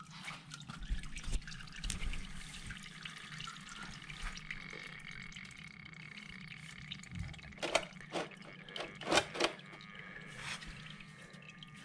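Engine oil running and dripping off the exhaust headers into a drain pan as the oil filter comes off, with a few sharp clicks about eight and nine seconds in.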